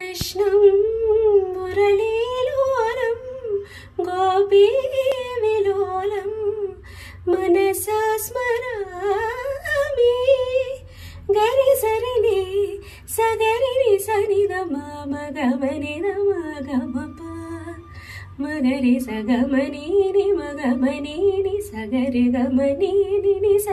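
A woman's voice sings a slow devotional melody without accompaniment, in wavering, ornamented phrases a few seconds long. About halfway through, the melody moves down to a lower register.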